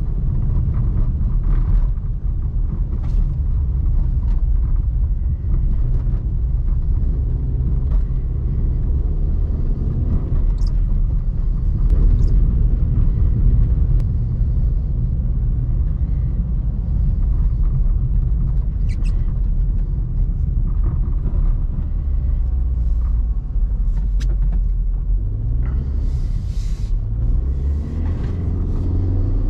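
Opel Meriva 1.4 (90 HP) four-cylinder petrol engine and road rumble while driving, a steady low drone; near the end the engine note rises as the car pulls harder.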